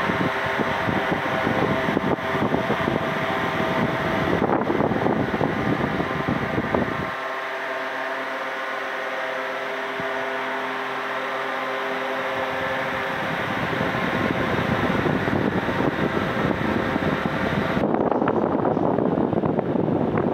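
Electric pedestal fan running: a steady motor hum with the rush of its airflow. The low gusty rumble of air drops away about seven seconds in and builds back up in the second half.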